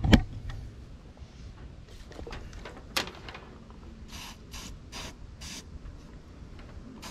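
WD-40 aerosol can sprayed in four short hissing bursts about four seconds in, lubricating the antenna lead so it slides through the rubber grommet in the cowl. A sharp click comes a second or so before.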